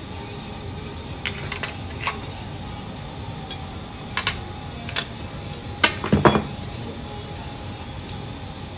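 A string of light metal clinks and taps as a flat metal bar knocks against the steel fixture plates on a Ford Model T engine block, the loudest cluster about six seconds in. Under them runs the steady hiss of a gas torch heating the bearing fixture before the babbitt pour.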